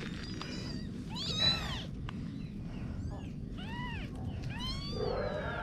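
Kitten meowing: about six short, high-pitched meows, each rising and falling in pitch, the loudest about a second and a half in. Near the end a lower, longer meow begins.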